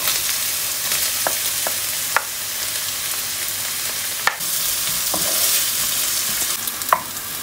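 Chopped onion sizzling in hot oil with ginger and garlic in a non-stick wok as it is scraped in from a plate and stirred with a wooden spoon. A steady hiss, with a few short clicks of the spoon against the plate and pan.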